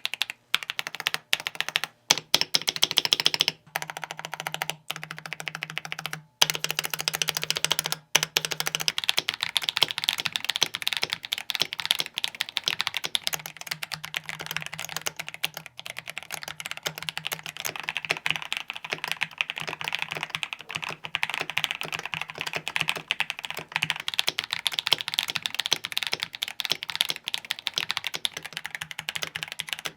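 Fast typing on a mechanical keyboard: a dense run of keystroke clacks, broken by a few short pauses in the first several seconds and then continuous.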